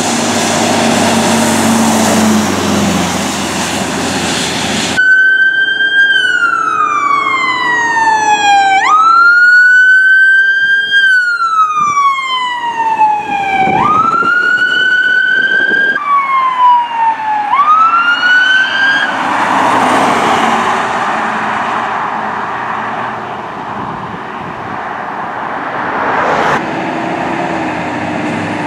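Fire truck siren sweeping up and down in long cycles, each a quick rise then a slower fall, over the noise of passing trucks and road traffic. The sound changes abruptly a few times as different trucks go by.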